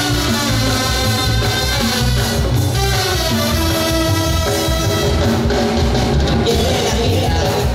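A live band playing: brass horns over electric bass and drums, with a steady pulsing beat.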